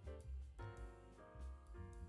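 Background music: a piano-led instrumental with a bass line, chords changing about every half second.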